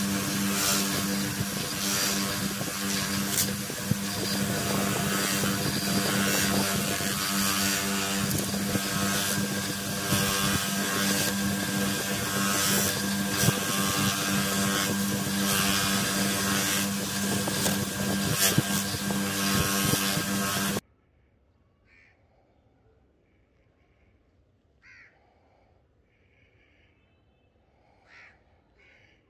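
Small bench grinder motor running steadily with a constant hum while the spinning wheel grinds a small steel blade, a continuous grinding hiss over it. It cuts off abruptly about two-thirds of the way in, leaving near quiet with a few faint bird calls.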